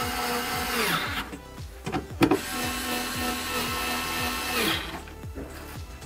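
Cordless power driver tightening bolts on a car door's inner module panel: the motor runs twice, for about a second and then for about two and a half seconds, winding down in pitch each time it stops, with a short click in between.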